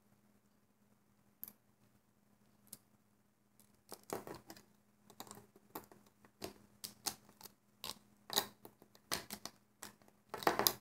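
Small irregular clicks and snaps of rubber loom bands being worked by hand on a small plastic loom. The clicks are sparse at first and come quickly from about four seconds in.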